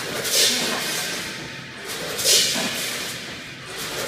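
Snack pouch packing line running: a multihead weigher and vertical form-fill-seal bagging machine working in a regular cycle, with a hissing rush about every two seconds.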